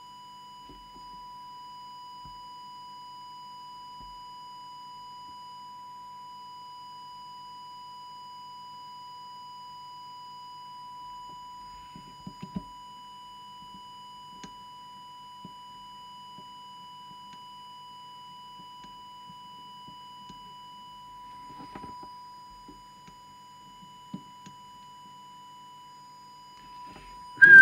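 Steady single-pitch audio test tone from a signal oscillator, fed in to set the FM transmit deviation of a DNT Contact 40 CB radio. A few faint clicks come from the adjusting tool on the circuit board, and there is a brief loud burst right at the end.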